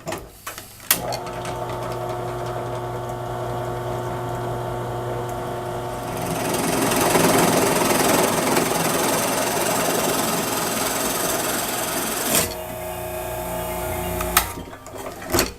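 Drill press switched on with a click, its motor running with a steady hum. About six seconds in the bit bores into a wooden board, adding a louder rasping noise for about six seconds, then the bit comes out and the motor runs alone until it is switched off near the end.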